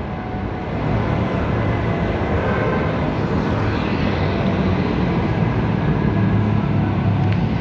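Steady road traffic noise, engines and tyres, with a low engine rumble underneath, getting louder about a second in.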